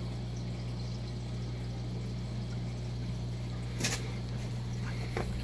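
Aquarium filtration: water trickling and bubbling over a steady low hum, with a single click about four seconds in.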